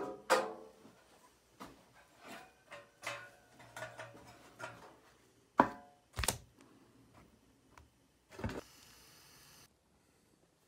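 Irregular knocks, clatters and scrapes of things being handled in a small room, with three sharper knocks in the second half and a short hiss near the end.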